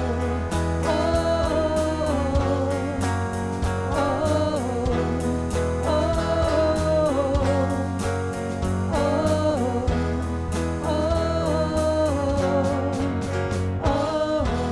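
A worship band playing an instrumental break in a contemporary praise song: a steady drum beat and bass under guitar, with a sustained melody that wavers in pitch.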